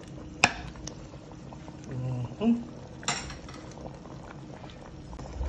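Pot of stew peas boiling steadily with a bubbling hiss, with two sharp metal clinks against the pot, one about half a second in and another about three seconds in.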